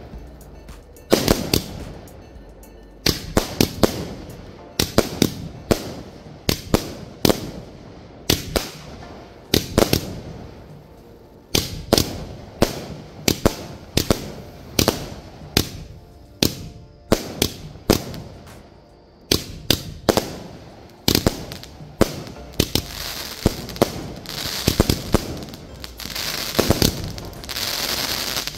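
Asok Euphoria 120-shot multi-colour repeater cake firing: a long run of sharp bangs, one to two a second and sometimes in quick clusters, as its shells burst in the air. Near the end a steadier crackle fills the gaps between the bangs.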